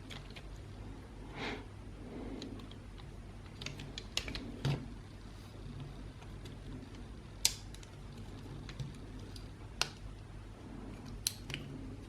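Scattered small clicks and taps of an Xbox One controller's plastic parts and small tools being handled during disassembly, a few seconds apart, over a faint steady low hum.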